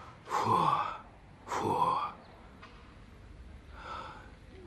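A hungover man groaning twice, about a second apart, as he sits up, then a faint breathy sigh near the end.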